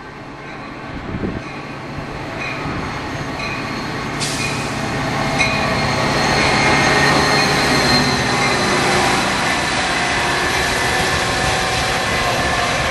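Metra EMD F40PH diesel locomotive and bilevel passenger cars rolling along the platform, growing louder as the train comes close about halfway through. Thin high steady tones ride over the rumble, and a sudden hiss joins about four seconds in.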